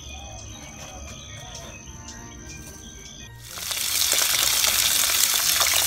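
Tap water starts gushing into a steel bowl of soaked glutinous rice a little past halfway, a sudden loud, even splashing hiss. Before it, only a faint steady background.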